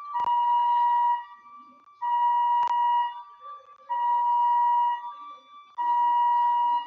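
An electronic alarm beeping: a steady single-pitched tone about a second long, repeating roughly every two seconds, four beeps in all. Two sharp clicks come in, one at the start of the first beep and one midway through the second.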